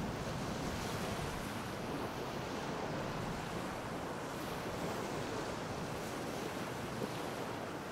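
Gulf of Mexico surf washing gently onto the beach, a steady hiss of waves, with wind rumbling on the microphone.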